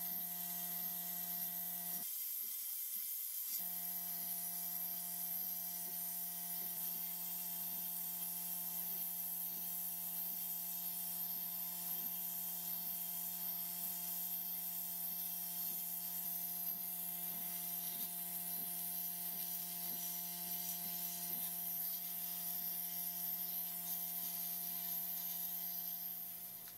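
Abrasive blast cabinet running: a steady hiss from the blast gun as it blasts pressed-steel toy parts, over a steady motor hum. The hum drops out briefly about two seconds in, and the sound fades out at the very end.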